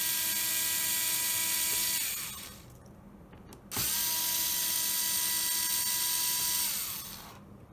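Electric screwdriver backing out the two screws that hold a laptop's hard drive: a steady whine that winds down and stops about two seconds in, then a second run of about three seconds that winds down the same way.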